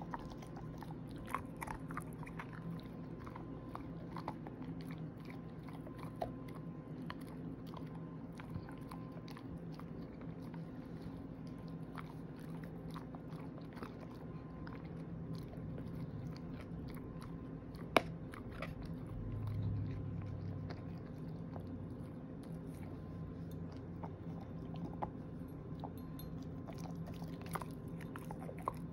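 Shepherd-mix dog gnawing on a hard 'everlasting' chew treat: irregular crunches and clicks of teeth on the treat, with one sharper click about two-thirds of the way through.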